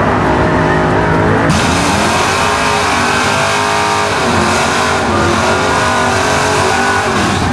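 Ford Fairlane drag car doing a burnout: its engine revs high while the rear tyres spin on the pavement, the pitch climbing, dropping off about four seconds in, then climbing and dropping again near the end. It starts abruptly about a second and a half in, replacing the sound of another car's engine.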